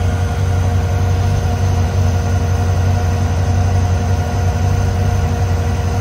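The LS7 V8 in a 1972 Corvette convertible idling with a steady low rumble.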